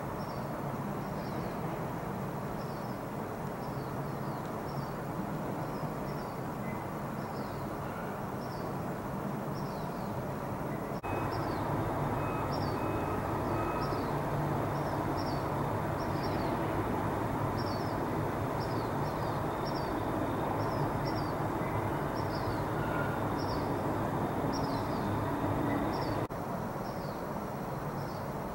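Steady outdoor background of distant traffic rumble, with a small bird repeatedly chirping short, high notes that slide downward, about one or two a second. The background gets louder about a third of the way in and drops back near the end.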